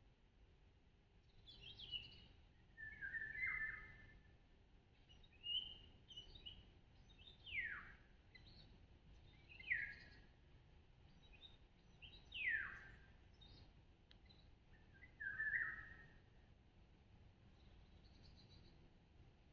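Birds calling and singing, faint: a scatter of short chirps and several clear whistled notes that slide steeply down in pitch, a couple of seconds apart.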